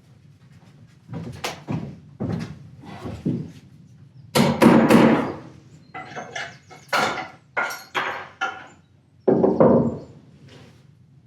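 A run of knocks, bangs and scraping as wood and building material are handled, some strokes with a faint ring. The loudest clatter comes about four seconds in, and there is one more bang near the end.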